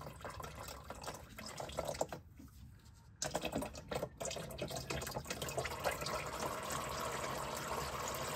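Automatic transmission fluid running out of the ZF 8-speed transmission's drain hole and splashing into a drain pan. The flow quietens briefly about two seconds in, then comes back steadier a second later.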